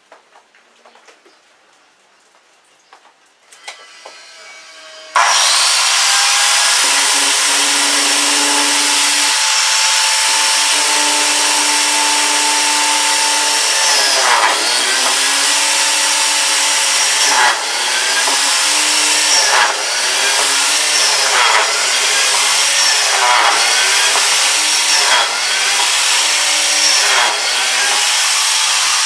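Electric woodworking tool starting abruptly about five seconds in and running loudly while cutting wood. Its motor pitch dips briefly again and again in the second half as the cutter takes load.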